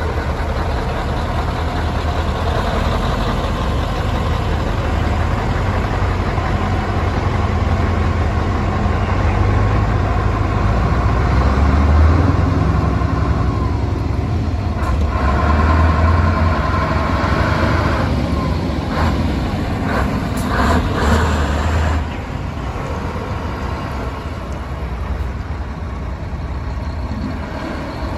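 Heavy lorry diesel engines running as tractor units, among them a Scania T-cab and a Renault T, pull slowly past one after another. The engine sound swells twice in the middle, with a few brief hisses between about 15 and 21 seconds in, and drops back at about 22 seconds.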